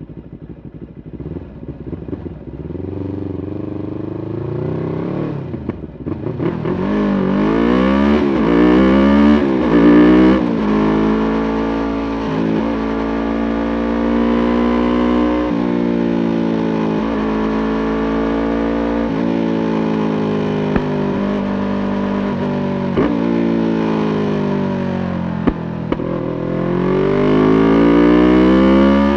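Yamaha YZF-R3's 321 cc parallel-twin engine under way. It starts low for the first few seconds, then pulls hard from about six seconds in, the pitch climbing and dropping through several quick gear changes. It then holds a steady note at speed, eases off and picks up again near the end.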